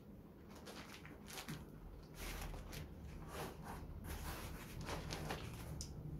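Plastic bag around a speaker cabinet crinkling and rustling in short, irregular rustles as the cabinet is handled and a foam packing piece is lifted off its top.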